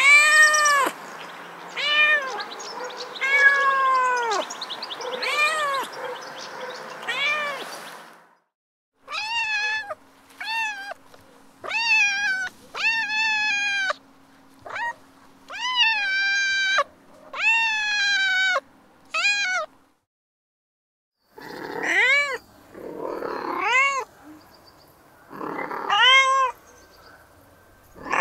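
Recorded domestic cat meows played back from a cat-sounds app: three clips in turn, each a run of repeated meows rising and falling in pitch, with short silences between them about eight and twenty seconds in.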